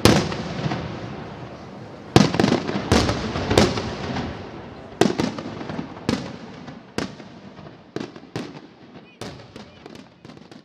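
Aerial firework shells bursting overhead: a string of sharp bangs, about a dozen, each trailing off in a ringing tail, growing fainter toward the end.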